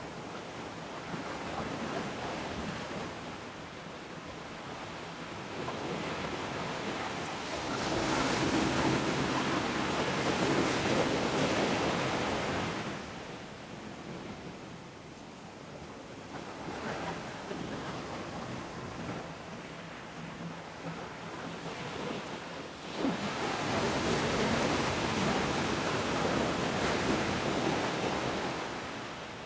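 Ocean waves breaking and washing ashore in slow swells. Two big surges come about eight and twenty-three seconds in, each fading over several seconds, with smaller swells between.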